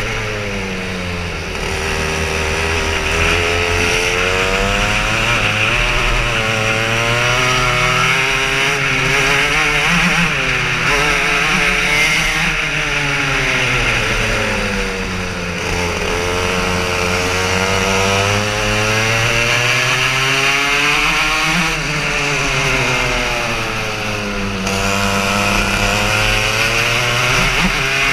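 Racing kart engine heard onboard, its pitch climbing as it accelerates and dropping back as it slows for corners, over and over through the lap, with a steady rushing noise over it.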